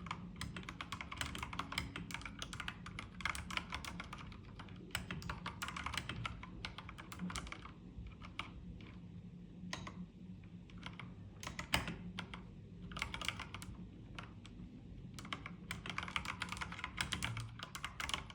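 Typing on an Akko 3098B mechanical keyboard with Akko CS Jelly Pink linear switches: a quick run of keystrokes, slowing to separate, spaced key presses from about eight seconds in, then fast typing again near the end.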